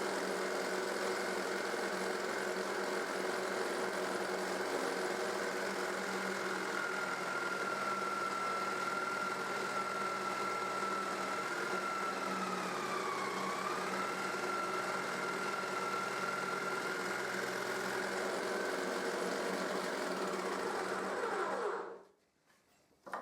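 Jigsaw mounted under a homemade jigsaw table, running steadily while cutting a board on a crosscut sled. Its whine dips briefly in pitch about halfway through, and the saw switches off about a second before the end.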